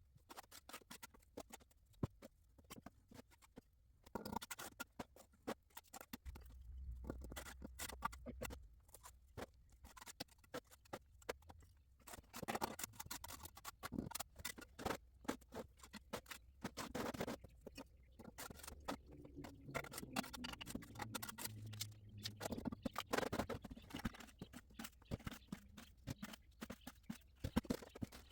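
Trowel scraping and tapping wet mortar and bricks in scattered short strokes, with brief pauses between bursts of work.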